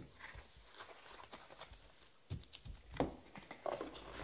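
Trading-card boxes and cards being handled on a table: scattered light taps and clicks, with a few soft knocks past the midpoint as boxes are moved and set down.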